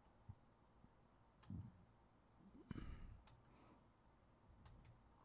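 Near silence: room tone with a few faint clicks, a soft thump about a second and a half in, and a brief louder noise about halfway through.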